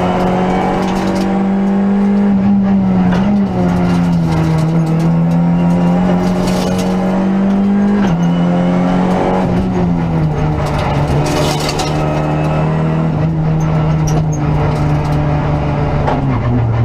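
Renault Clio Rally5 rally car's engine heard from inside the cabin, running under load at fairly steady revs. The pitch dips a few times, with the clearest step down near the end.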